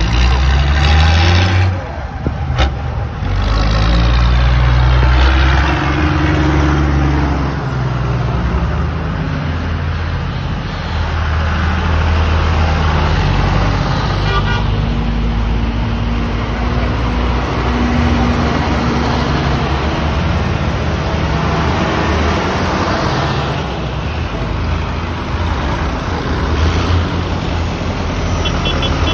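Vintage diesel tractor engines driving past one after another, a loud, low running sound that swells as each tractor comes by.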